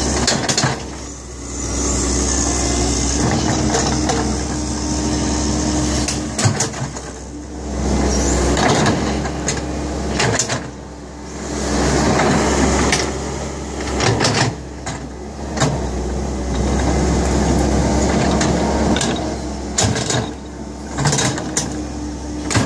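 Kobelco hydraulic excavator's diesel engine running under working load, its loudness swelling and dipping every few seconds. Sharp cracks and knocks run through it.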